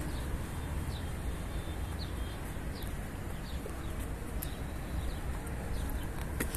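Small birds chirping: many short, quick calls that slide downward in pitch, scattered throughout, over a steady low rumble.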